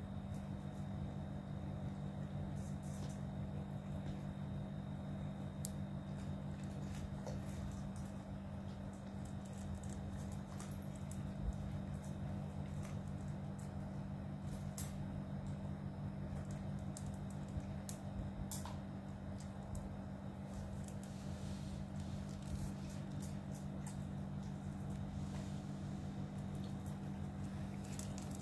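Cats eating dry kibble from stainless steel bowls: scattered small crunches and clicks over a steady low hum.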